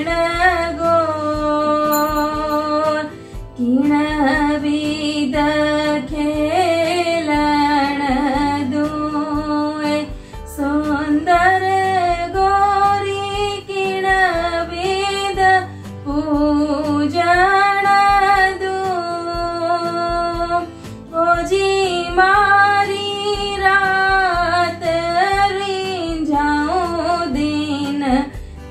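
A woman singing a slow devotional Gangaur song without accompaniment. She holds long notes in phrases several seconds long, with short pauses for breath between them.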